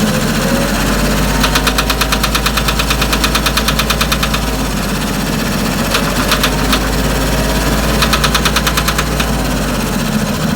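Branson 3520h tractor's diesel engine idling with a fast, even tapping that comes and goes in stretches. The tapping is the valves slapping, which the owner takes for valves out of adjustment; the dealer suspected the rockers or a valve hitting a piston.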